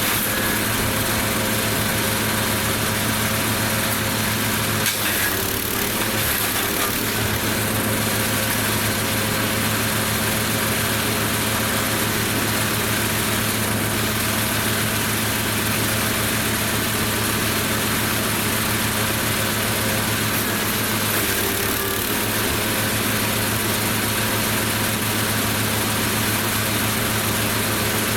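Lumag Rambo HC15 petrol wood chipper running steadily, its engine holding a constant hum with a rough mechanical haze over it. There is a brief knock about five seconds in.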